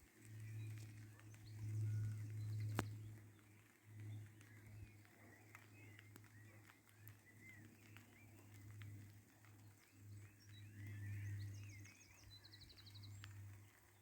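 Faint birdsong in open countryside: scattered chirps and a short trill near the end, over a low rumble that swells and fades. A single sharp click comes about three seconds in.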